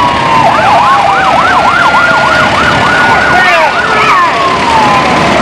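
Emergency vehicle sirens sounding together: a fast yelp sweeping up and down about three times a second over a slower falling wail. The yelp stops about three and a half seconds in, while the wail carries on.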